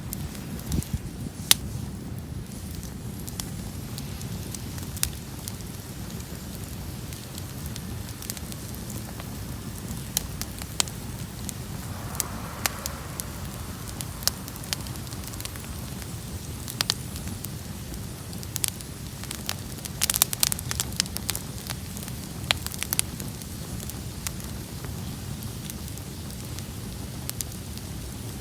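Open bonfire of cut brush and dug-up roots burning with a steady low rush of flame, crackling, and sharp pops scattered throughout, thickest about two thirds of the way in.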